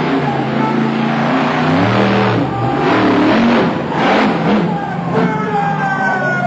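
Monster truck engine revving hard as the truck runs the course and jumps. The pitch climbs about two seconds in, then rises and falls several times as the throttle is worked.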